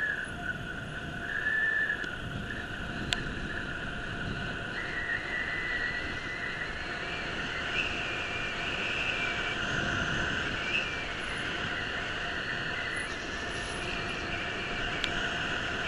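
Bicycle coasting downhill on asphalt: rushing tyre and wind noise under a sustained high, slightly wavering squeal, of the kind dragged brakes make on a descent.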